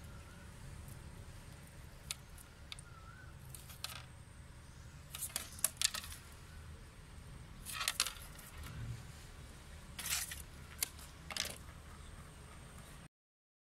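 Scattered light clicks, rattles and scrapes from a steel tape measure and a pencil being handled against a wooden panel while points are measured and marked, over a faint low hum. The sound cuts off to silence near the end.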